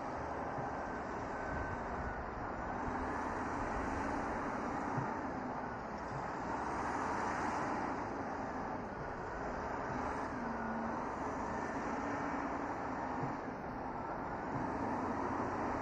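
Steady outdoor background noise, a hiss that swells and fades every three to four seconds.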